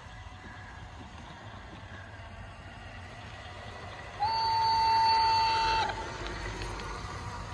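Garden-railway model of an E91 electric locomotive sounding its horn once: one steady high tone of about a second and a half, starting about four seconds in and cutting off sharply. Under it runs the faint rumble of the model rolling along the track, growing louder as it comes closer.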